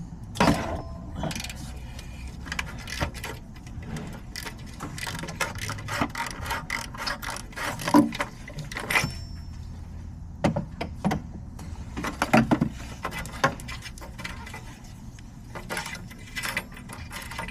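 Ratchet wrench clicking in runs, with a few sharper metal knocks of socket and tools, while the upstream oxygen sensor is loosened and unscrewed.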